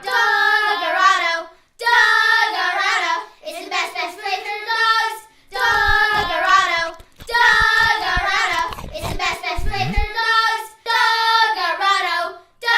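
A child singing a melody in short phrases, with a few low thumps in the middle.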